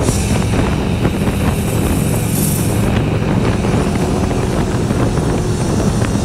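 Harley-Davidson Street Glide's V-twin engine running steadily at highway cruising speed, an even drone with no change in revs, mixed with wind noise on the microphone.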